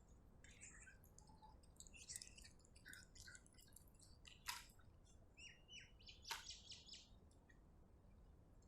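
Cat chewing food: quiet wet smacks and clicks of its mouth, with a sharper click about four and a half seconds in and again near six and a half seconds. A few short high chirps sound around the middle.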